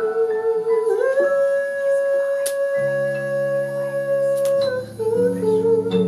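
Live jazz: a woman singing into a microphone, holding one long note from about a second in until near the end, with low accompanying notes coming in midway.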